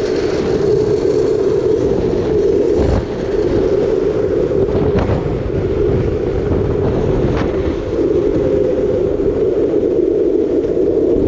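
Street luge wheels rolling fast on asphalt: a loud, steady rolling roar, with a few faint clicks along the way.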